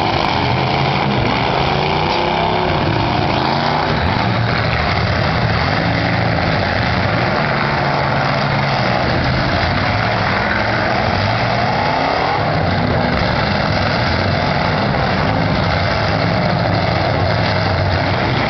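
Several eight-cylinder demolition-derby car engines running and revving at once, a loud continuous engine din with pitch rising and falling as the drivers accelerate.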